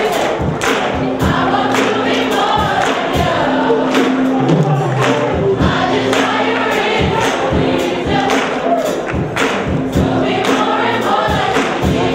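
A choir of voices singing with instrumental backing and a steady beat.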